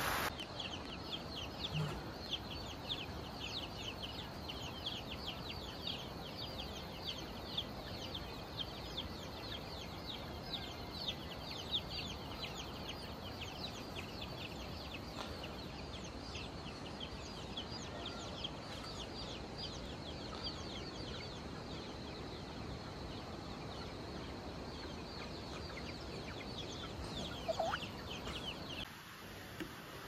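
Chickens peeping: a dense run of short, high, falling chirps, several a second, over a steady hiss.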